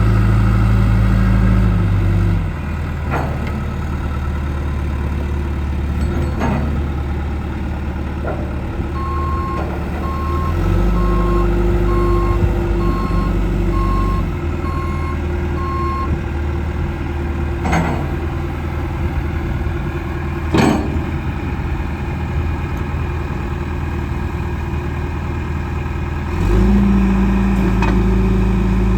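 John Deere 310SG backhoe loader's diesel engine running. It drops from a higher speed about two seconds in, speeds up again for a few seconds near the middle, and rises again near the end. Partway through, the reversing alarm beeps about once a second for several seconds, and there are a few sharp metallic knocks.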